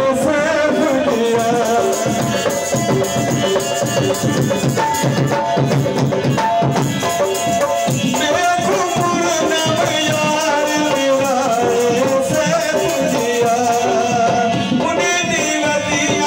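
Live folk music: a harmonium playing held melodic notes over a hand drum's fast, steady rhythm, with a man's singing voice at times.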